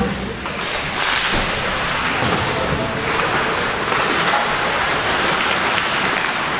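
Ice hockey play: skate blades scraping and carving the ice in a continuous hiss, with scattered short clicks from sticks and puck.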